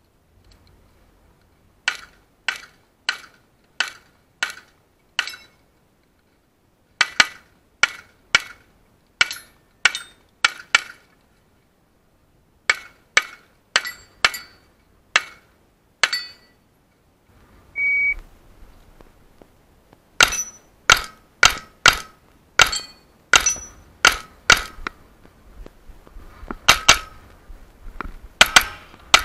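Rapid 9mm pistol fire from a ported Smith & Wesson M&P 9 with a red-dot sight, heard close from the shooter's head camera. Shots come in strings about half a second apart, broken by pauses of one to two seconds as the shooter moves between positions on the stage.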